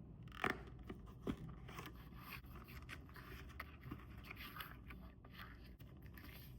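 A phone case and its packaging being handled: two sharp taps about half a second apart, then continuous scraping and rustling with small clicks, which stops suddenly at the end.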